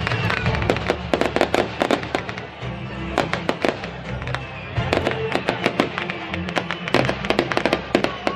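Aerial fireworks crackling: many sharp pops and cracks in quick, dense clusters, over the show's music.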